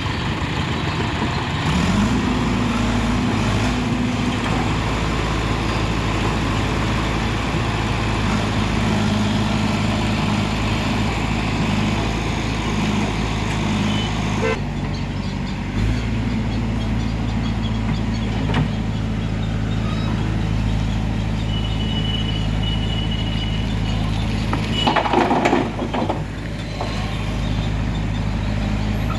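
Diesel engine of heavy machinery running steadily, rising in pitch about two seconds in as it revs up. A brief louder noise burst comes near the end.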